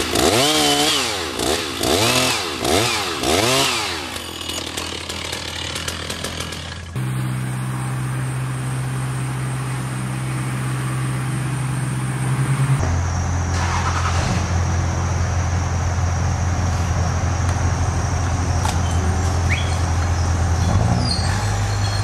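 Chainsaw cutting into an oak trunk during a felling cut, revving up and down about five times in the first few seconds, then running more steadily. After abrupt cuts a steady engine drone runs on.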